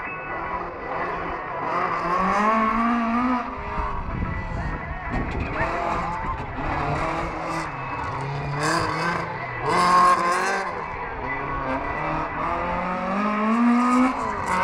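Race car engines revving up and down hard, with tyre squeal as the cars slide through the turns; the loudest burst comes about ten seconds in.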